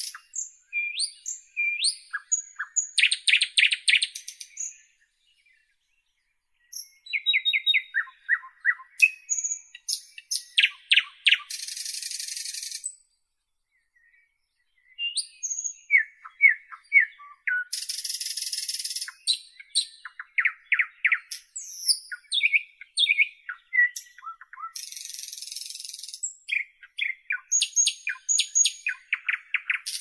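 Nightingale singing in varied phrases of rapid repeated notes, short whistles and harsh buzzy notes, with pauses of a second or two between phrases.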